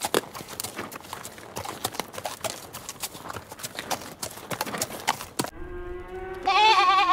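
Horse hooves clip-clopping in quick, irregular knocks for about five seconds. A goat bleating then takes over, a held call that starts to waver near the end.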